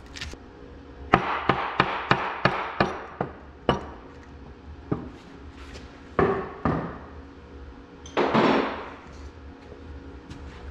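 Hammer blows on a block of plastic driving a partly loosened cylinder sleeve up out of an Oliver 1600 tractor engine block. A quick run of about four blows a second comes first, then single blows and two longer, harsher sounds in the second half.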